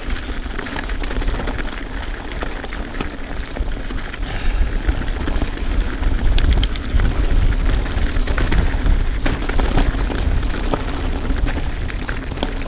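Wind buffeting an action camera's microphone as a mountain bike rolls down a rough dirt and rock trail, with many sharp clicks and rattles from the bike over the terrain.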